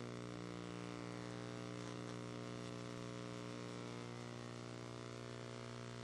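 A steady buzzing hum of even, unchanging pitch, made of many stacked overtones.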